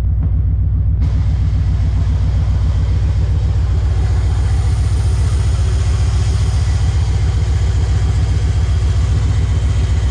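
1995 Camaro Z28's LT1 V8 running at a steady idle through newly installed long-tube headers, its firing pulses even, on its first start after the header install.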